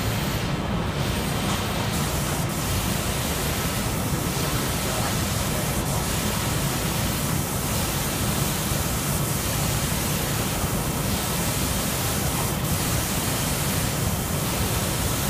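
Steady rushing air noise of a spray booth, with two automatic spray guns hissing as they spray. The high hiss fills in about two seconds in, when the guns start. A faint regular swell comes about every second and a half to two seconds.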